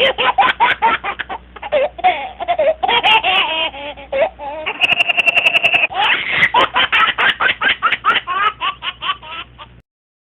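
Laughter sound effect: a fast run of repeated laughing pulses, with a brief steady high squeal about five seconds in, cutting off abruptly near the end.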